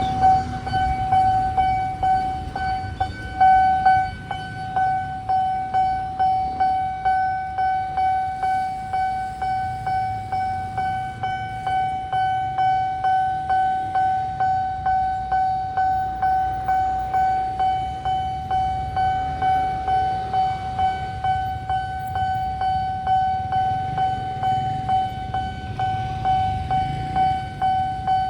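Railway level-crossing warning alarm sounding: one steady high tone that pulses nearly twice a second.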